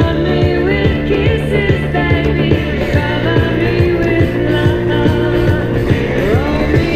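Rock song playing: a sung vocal over a steady drum beat with bass and guitar.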